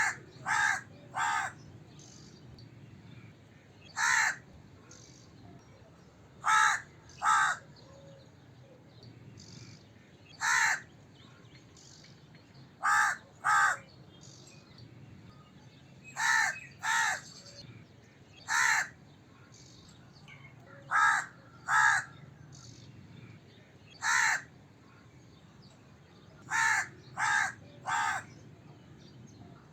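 A crow cawing repeatedly: short caws, one at a time or in quick runs of two or three, every few seconds.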